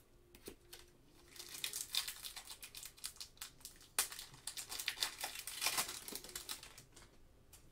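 Plastic wrapper of a Panini Optic basketball card pack crinkling in gloved hands as the pack is handled and opened, in a quick irregular run of crackles.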